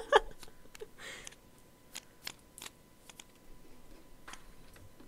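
A few scattered light clicks, with a short soft rustle about a second in.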